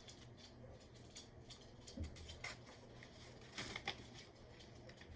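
Faint rustling and a few soft clicks of a paperback picture book's pages being handled and turned.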